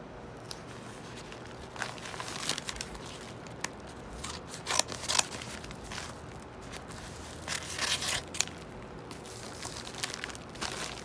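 Packaging being torn open and crumpled by hand, in irregular rustling bursts that start about two seconds in and are loudest around the middle and again a little later.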